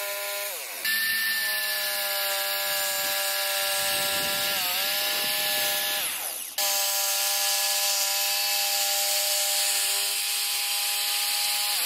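Electric power saw cutting a wooden chair leg out of a board, its motor running with a steady whine. It is let off and slows down about half a second in and again about six seconds in, starting up again each time. Its pitch dips for a moment near five seconds in, and it winds down at the end.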